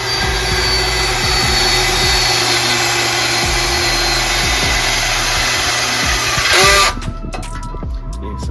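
Power drill boring a hole through a steel bumper, running steadily for about seven seconds, getting louder just before it stops.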